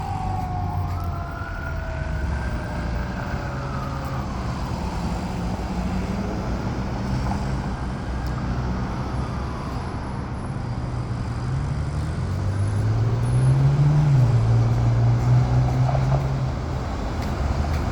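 Street traffic with an emergency-vehicle siren wailing in slow rising and falling sweeps through the first half. In the second half a vehicle engine grows louder and changes pitch as it passes.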